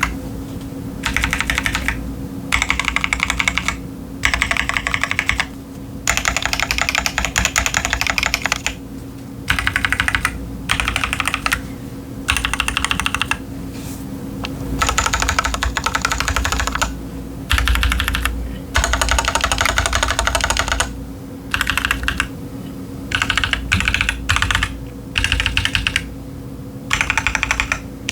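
Keychron Q10 aluminium-bodied mechanical keyboard with tactile TTC Chaotic Panda switches and doubleshot ABS cherry-profile keycaps, typed on in bursts of fast keystrokes separated by short pauses. A faint steady hum runs underneath.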